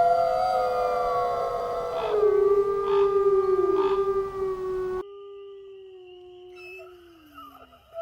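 Several wolves howling together in long, held notes at different pitches that overlap. About five seconds in, the sound cuts abruptly to fainter howls, one sliding down in pitch.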